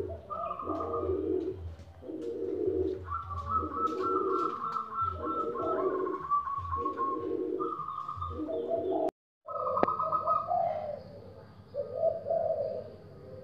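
Several caged zebra doves (perkutut) and other doves cooing at once: short repeated low coos overlap with higher, faster trilled phrases, so no single bird stands out. The sound cuts out for a moment about nine seconds in.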